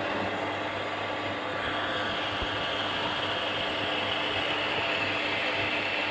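Electric surface water pump running steadily, a low motor hum with a high whine that grows stronger about two seconds in. The pump runs but, by the owner's account, does not build pressure even with the water closed off.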